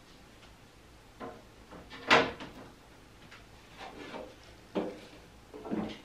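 Clear plastic storage bins handled and set down on a wooden tabletop: a few soft clacks, with one sharp knock about two seconds in.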